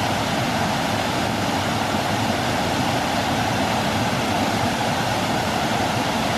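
Waterfall: a steady rush of water pouring over rock ledges into a pool.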